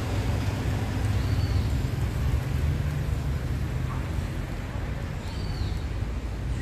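Outdoor street background noise: a steady low rumble, with two faint high chirps about a second in and again past the five-second mark.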